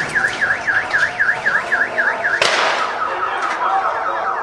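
Car alarm set off by a nearby controlled explosion, warbling in quick falling-and-rising chirps, about four a second. A second sharp bang cuts in about two and a half seconds in, and the alarm goes on lower and fainter after it.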